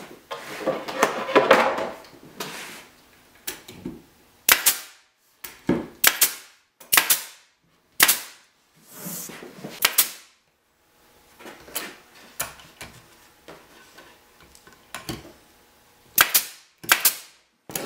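Pneumatic brad nailer firing brads one at a time to fasten molding inside a wooden picture frame: about seven sharp shots at irregular intervals, with a few fainter ones between. The first couple of seconds hold a clatter of the wood pieces being handled.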